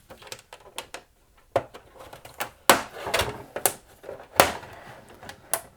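Plastic rear casing of a Samsung TV being pried open with a spudging tool: a string of sharp clicks, snaps and knocks as the clips along the edge let go and the panel is handled.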